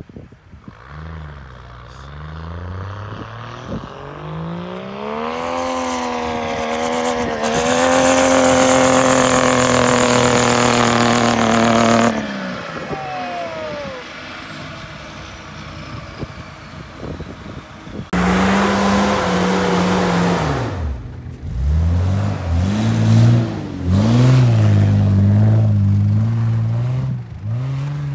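Land Rover Defender's swapped Mercedes OM606 straight-six turbo-diesel revs up steadily and holds high revs as it drives off through deep snow, then cuts off suddenly. From about two-thirds in, a diesel 4x4 engine revs up and down several times in quick bursts as it climbs through snow.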